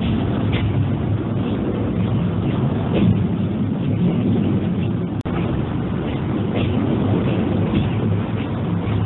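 Railcar running along the track: a steady loud rumble with scattered faint clicks. It cuts out for an instant about five seconds in.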